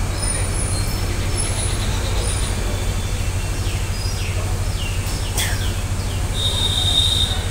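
Steady low background rumble with birds chirping over it: scattered short high chirps, several quick falling chirps in the middle, and a held high whistle near the end.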